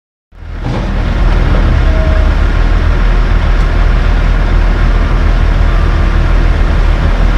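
Heavy-duty diesel dump truck engine running steadily with a deep rumble, fading in just after the start.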